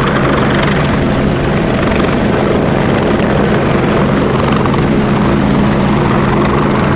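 Light single-engine helicopter hovering low, its rotor and turbine making a steady, even noise with a constant low hum.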